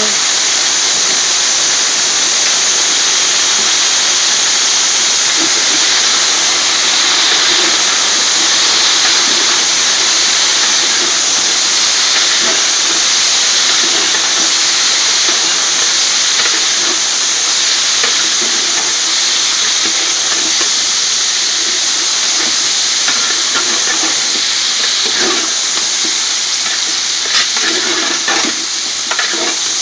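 Whole scotch bonnet chillies sizzling steadily in hot oil in a large pot on the stove, with a few light knocks of the ladle against the pot near the end.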